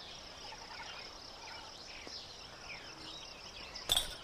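Soft outdoor ambience of chirring insects with scattered short bird chirps. One sharp click or knock comes near the end.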